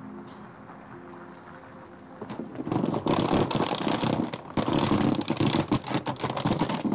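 Wheeled suitcase rattling over cobblestones as it is pulled along, a dense irregular clatter that starts about two seconds in, after faint fading music.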